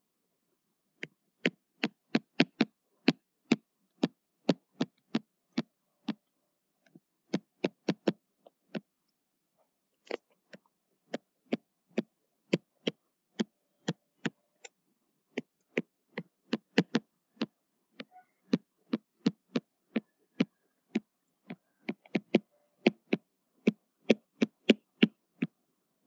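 Stylus tapping on a tablet's writing surface during handwriting: a long run of sharp, irregular taps, one or two a second, with a short pause about a third of the way in.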